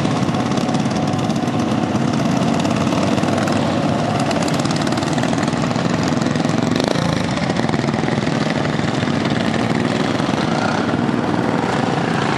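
Several racing lawn mowers' small engines running together at racing speed, making a steady, unbroken drone.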